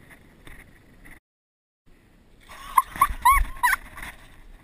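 Weird, high-pitched vocal noises from a person: about five short yelps that rise and fall in pitch, coming in quick succession about halfway through.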